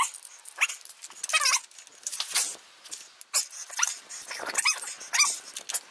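A dog whining in short yips that fall in pitch, about eight times, with light clicks in between.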